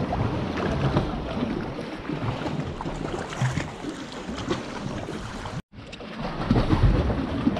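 Kayak paddle strokes splashing and water lapping against the kayak's hull, with wind buffeting the microphone. The sound breaks off for an instant about two-thirds of the way through.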